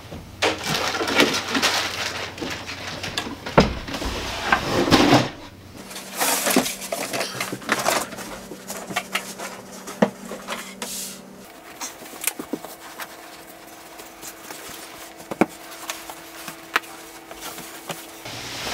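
Household handling noise of furniture and bedding being moved: rustling and scuffing for the first few seconds, then scattered knocks and bumps. A faint steady hum sits underneath in the second half.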